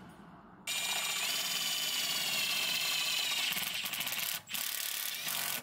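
A small mechanism running with a steady high whine and clicking, starting about a second in, dipping briefly near the end and then cut off abruptly.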